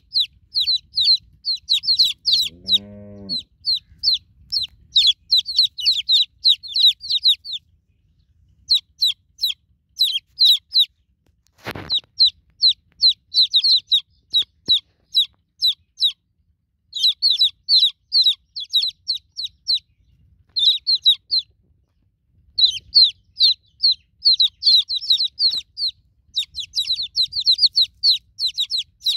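Newly hatched chicken chicks peeping: rapid runs of short, high, downward-sliding peeps, several a second, with brief pauses between runs. A short low call comes about three seconds in, and a single sharp click near the middle.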